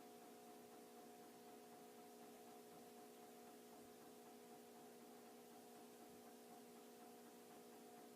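1999 Encon Petite ceiling fan's motor running with a faint, steady hum.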